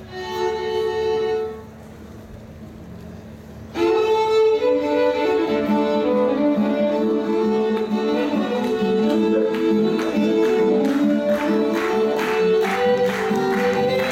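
A fiddle briefly holds two notes together, then, after a short pause, starts an old-time Appalachian tune about four seconds in. Acoustic guitars strum along in a steady rhythm.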